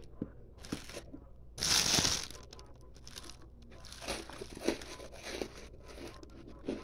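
Refrozen ice being bitten and crunched in the mouth: one loud crunch about two seconds in, then softer crunches and clicks as it is chewed.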